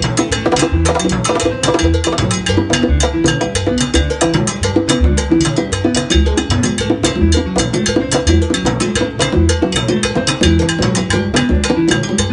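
Live salsa music with hand-played congas up front: fast, steady open tones and slaps on the drum heads over a repeating low bass line.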